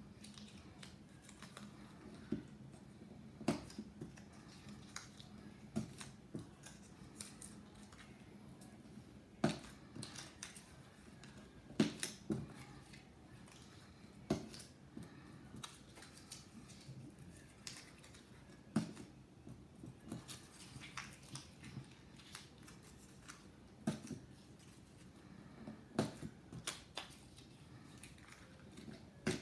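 Small squares of scrap paper crinkling and rustling as they are handled and pushed down onto a stack on a spike, in irregular sharp crackles every second or two, over a faint low hum.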